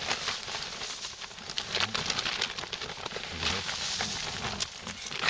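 Crinkling of a plastic bag and rustling of dry dead leaves and straw being handled, as a continuous run of crackles.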